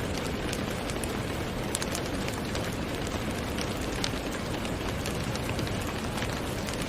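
Steady rain: a dense, even hiss with many sharp drop taps scattered through it.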